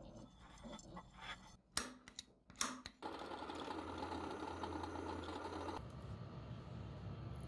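Metalworking sounds in quick cuts: a few sharp clicks, then a drill press running steadily as its bit drills into a metal part for about three seconds, cutting off abruptly, followed by a quieter, lower steady hum.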